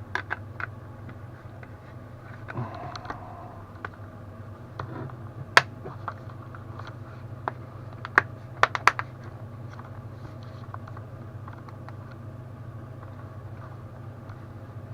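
Scattered sharp clicks and taps of small hard objects being handled: a few near the start, a loud one about five and a half seconds in, and a quick run of four about eight to nine seconds in. A steady low hum runs underneath.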